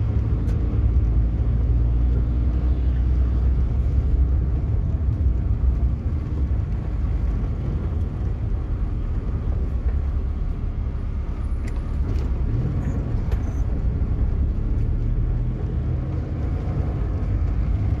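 A car driving, its engine and tyre noise heard from inside the cabin as a steady low rumble.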